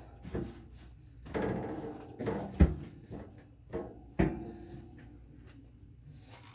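Knocks and clunks of refrigerator shelves and items being handled and set in place, with rustling between them and two sharp knocks, one about two and a half seconds in and the loudest about four seconds in.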